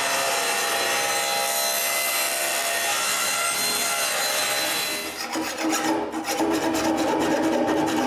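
Table saw running and cutting plywood fed on edge, taking a shallow rebate the thickness of a hinge. About five seconds in the steady cutting sound gives way to a rougher stretch of rapid scraping strokes.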